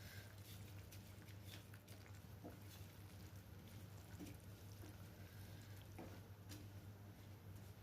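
Near silence: a steady low hum with faint, scattered clicks and pops.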